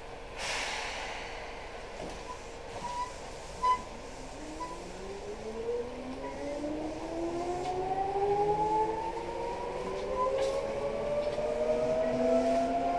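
Seibu New 2000 series electric train starting off: a short air hiss, a few short beeps, then from about four seconds in the traction motors whine in several parallel tones that rise steadily as the train accelerates.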